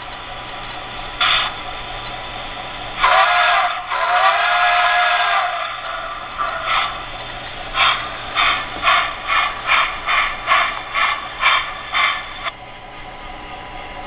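Onboard sound system of an HO scale steam locomotive model: two whistle blasts with a bending pitch, then steady exhaust chuffs at about two a second as the engine pulls away, stopping near the end.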